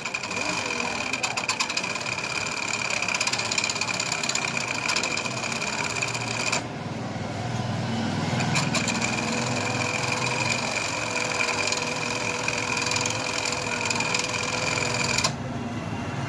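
Industrial overlock machine running at speed and stitching a decorative picot edge, with a fast, even mechanical chatter. Its sound changes about seven seconds in and again near the end.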